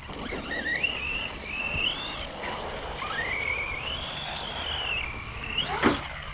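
Brushless electric motor of a radio-controlled off-road truck whining as the throttle is worked. Its pitch climbs in a long rise, drops back, then shoots up steeply near the end, over a steady rushing noise from the tyres on the dirt.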